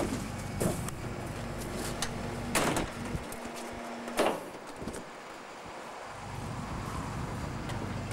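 Norba RL200 rear-loader garbage truck's hydraulic packer running through a compaction cycle: a steady mechanical hum with a held whine, and three metallic clanks as the packer plate moves, the last as the whine cuts off about four seconds in.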